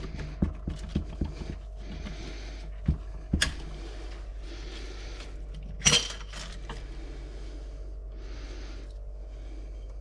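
Metal engine parts being handled on a workbench: light clicks and clinks, with one louder metal clink about six seconds in and short stretches of rubbing between.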